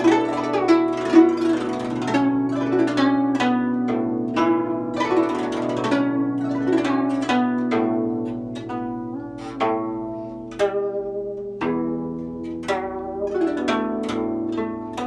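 Guzheng (Chinese zither) played solo: a steady stream of plucked notes ringing over each other, with some notes bent in pitch by pressing the string.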